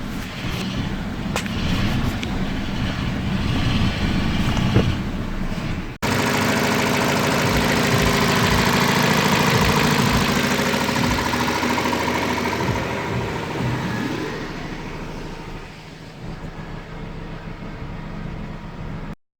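A MultiAir four-cylinder car engine running after a no-start repair. The sound breaks off abruptly about six seconds in and picks up again louder and steady, then fades over the last few seconds and stops suddenly near the end.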